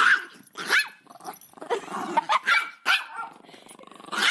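Small dogs barking repeatedly, about half a dozen short barks in quick succession, with some growling between them.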